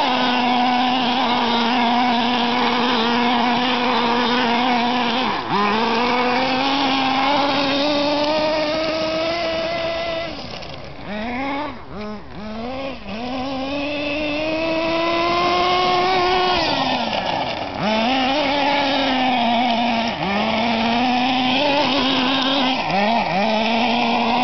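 Kyosho Inferno TR-15 RC nitro buggy's small glow engine running at high revs while doing donuts. It holds a steady high-pitched note, with brief throttle lifts and re-openings about five seconds in, several times near the end, and a longer drop with quick blips around the middle.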